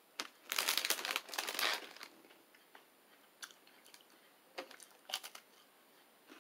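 Biting into a thin, crisp anise pizzelle waffle cookie: a dense run of crunching about half a second in, then a few scattered crunches as it is chewed.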